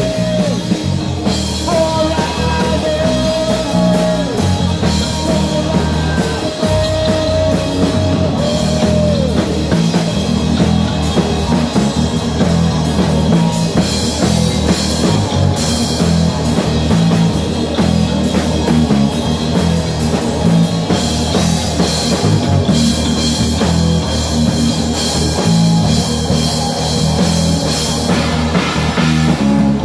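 A heavy metal band playing live: distorted electric guitar, bass guitar and a pounding drum kit, with long held high melodic notes over the first several seconds.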